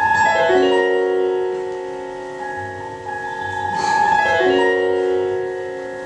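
Digital piano playing a slow passage alone: two chords about four seconds apart, each rolled downward note by note and left to ring, under a high note held over them.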